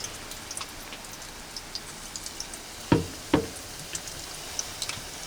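Chicken karaage deep-frying in oil: a steady hiss with scattered small crackles and pops. The oil has cooled after a crowded batch of chicken went in. Two sharp knocks come about three seconds in, less than half a second apart.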